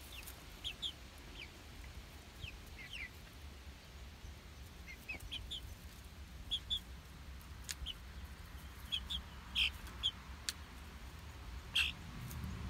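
Young chickens peeping: short, high, falling chirps, often in quick pairs, scattered through, with a few louder ones near the end.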